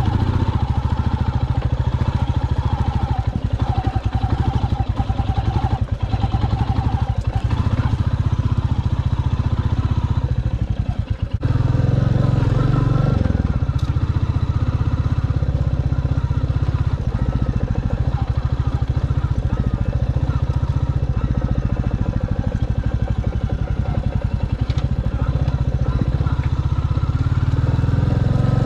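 2022 Royal Enfield Classic 350 Reborn's single-cylinder engine running under way on a dirt track, with a steady rapid pulse. It eases off briefly about eleven seconds in, then pulls harder again.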